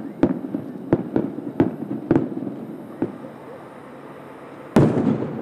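Aerial firework shells bursting about a kilometre away: a quick run of sharp bangs over the first two seconds, one more about three seconds in, then a much louder boom near the end that rumbles away.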